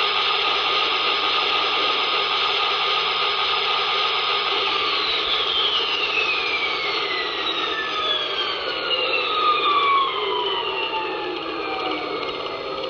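O gauge turbo train model's sound system playing its engine sound: a loud, steady turbine-like whine and hiss. From about five seconds in, several tones fall slowly in pitch, like the engine spooling down.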